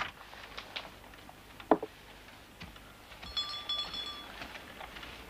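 Footsteps and light knocks in a small wood-floored room, with one sharper knock about two seconds in and a brief thin ringing tone in the middle.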